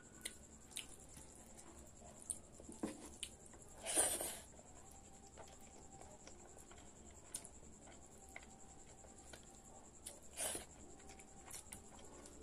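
Close-up eating sounds of a person eating rice by hand: small mouth clicks and chewing, with fingers gathering rice on a plate. Two louder brief noisy sounds come about four seconds in and again near ten and a half seconds.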